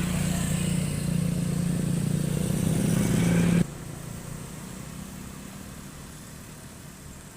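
A motor engine running steadily with a low hum, cutting off abruptly about three and a half seconds in and leaving quieter outdoor background noise.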